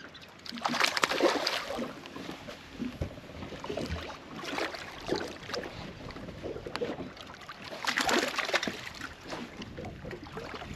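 Water splashing in two loud bursts, about a second in and again about eight seconds in, with smaller splashes between, as a hooked largemouth bass is fought to the side of a boat.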